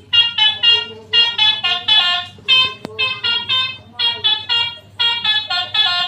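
Telolet bus horn playing a quick melody of short honked notes that step up and down in pitch, about three or four notes a second.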